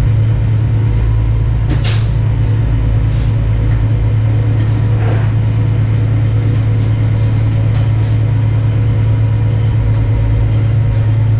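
A vehicle engine idling, a loud steady low drone, with a few light knocks and clinks.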